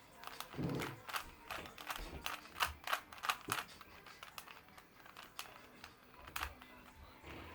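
Plastic Rubik's Cube being turned by hand: quick, irregular clicks and clacks as the layers are twisted.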